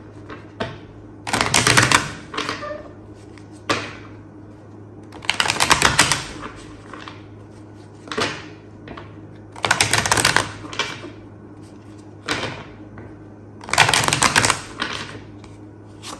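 Healing Light Tarot deck being shuffled in four quick bursts of rapid card clicks, about four seconds apart, with single clicks between the bursts.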